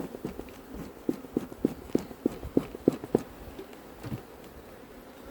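Beekeeper's smoker bellows pumped quickly, a quick train of short puffs about three a second that stops a little past halfway, with one last puff later on, smoking the bees to calm them before a frame is lifted.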